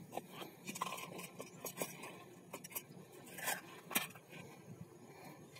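Scattered light clicks and rattles of dry cat kibble being tipped from a plastic bottle onto a board for kittens.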